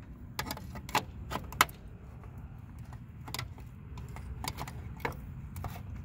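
Scattered sharp clicks and taps of a pry tool working the emblem's retaining clips on the back of a Freightliner Cascadia grille, over a faint low hum.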